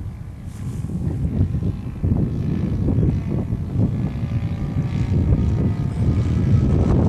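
Saito engine of an RC model Cessna running with its propeller, growing louder about two seconds in.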